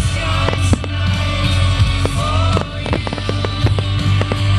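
Music with a singing voice, with fireworks bursting and crackling over it in many short sharp pops.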